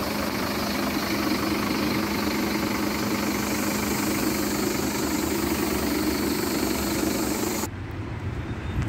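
Engine idling steadily with a constant low hum, close by. It cuts off abruptly about a second before the end, leaving only wind noise on the microphone.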